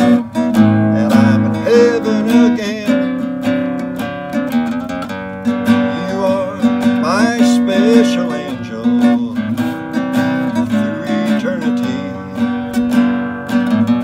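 Nylon-string classical guitar strummed in a steady rhythm, with a man's voice singing over it in places.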